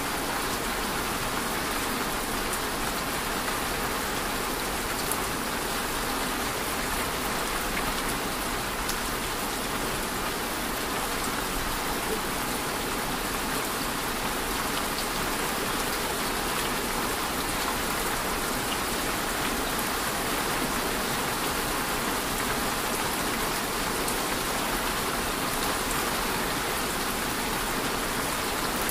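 Steady rainfall: an even, unbroken hiss with faint scattered ticks of drops.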